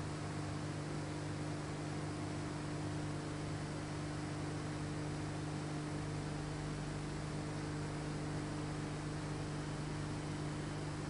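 Steady electrical hum with a constant hiss over it, unchanging throughout; no carving or tool sounds stand out.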